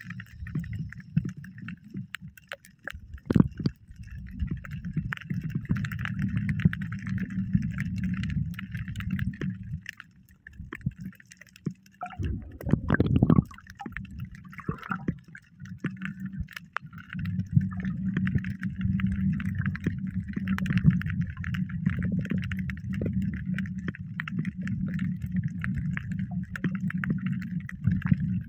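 Muffled water sloshing and gurgling against a camera in the sea while snorkeling, with many small clicks throughout. A louder burst comes about twelve seconds in, after a brief lull.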